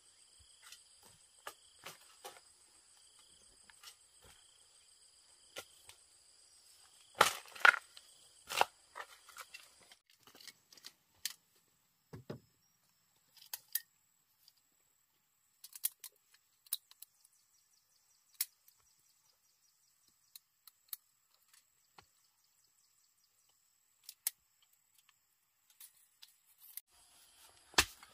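Sparse sharp knocks and taps, the loudest a short cluster of knocks about seven to nine seconds in. Insects buzz steadily for the first third, cutting off suddenly.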